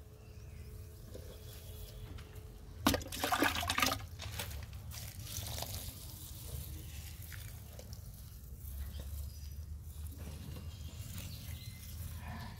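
Water poured slowly from a mug in a thin stream onto rice-husk mulch and soil in a grow bag, trickling and splashing, loudest for about a second some three seconds in.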